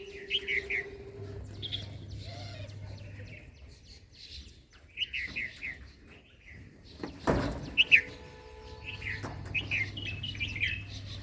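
Small birds chirping, with short high chirps coming in quick groups of three or four throughout. A sharp thump about seven seconds in, and a faint low hum at times.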